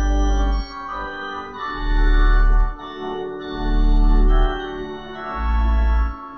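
Organ playing slow, sustained chords, with very deep bass notes swelling in and out three times.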